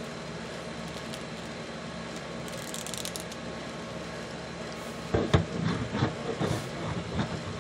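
Steady background hiss, then from about five seconds in, a run of knocks and rubbing as a plastic action figure is set down on the tabletop and handled.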